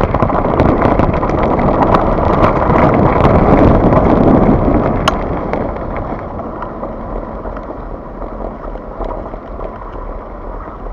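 Wind rushing over the microphone and tyres rolling over a gravel track as a Scott Genius mountain bike descends at speed, with frequent small rattles and knocks from the bike over the bumps. A sharp click comes about five seconds in, and after it the noise eases as the bike slows.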